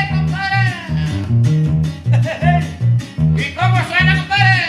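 Norteña band playing an instrumental passage of a corrido. Plucked guitars and a lead melody line ride over a bass that alternates between two notes in a steady two-beat rhythm.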